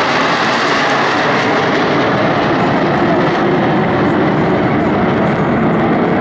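Jet engines of a close formation of Su-27 and MiG-29 twin-engine fighters flying past: a loud, steady jet noise.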